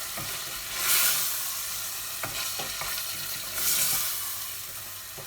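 Chicken, peppers and shallots sizzling in a frying pan with korma sauce, being stirred, the sizzle swelling twice. A few light knocks of the utensil against the pan come about two to three seconds in.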